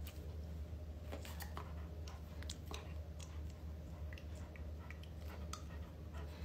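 A Rottweiler gently mouthing and nibbling a person's finger: soft, scattered clicks and wet smacks of its teeth and mouth, over a steady low hum.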